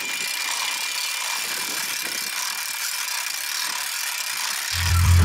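Cordless drill mounted on a bicycle frame running steadily, the sprocket in its chuck driving the bike's chainring: a steady high whine over a rough, noisy rasp of meshing teeth. Music with a heavy bass beat comes in near the end.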